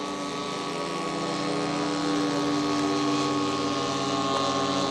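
Model airplane engine running at a steady speed, growing a little louder over the first two seconds.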